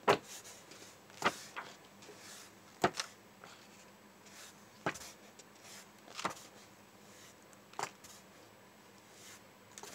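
Paper pages of a textbook being turned by hand, about seven short page flicks spaced a second or two apart.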